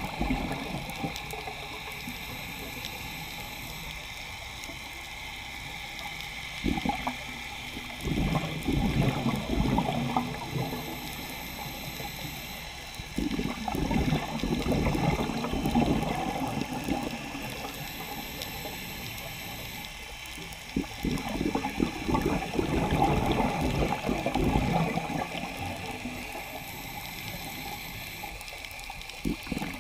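Scuba regulator exhalation heard underwater: the diver's exhaled bubbles gurgle out in three long surges several seconds apart, with a steady underwater hiss between breaths.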